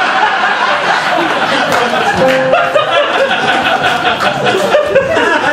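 Theatre audience laughing, with music playing underneath.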